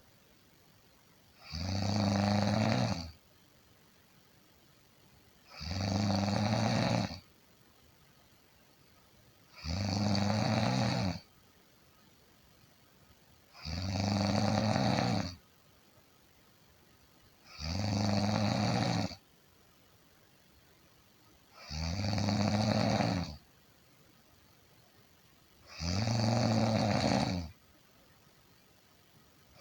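A person snoring steadily: seven evenly spaced low snores about four seconds apart, each lasting about a second and a half, with quiet in between.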